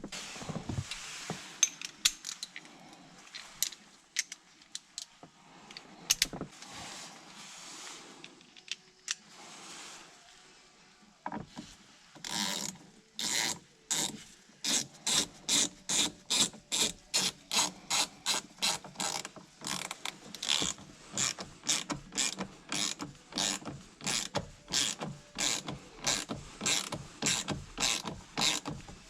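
Ratchet wrench being swung back and forth to run down a bolt, its pawl clicking in an even rhythm of about two strokes a second. Scattered clicks and handling noises come first, and the steady ratcheting starts about twelve seconds in.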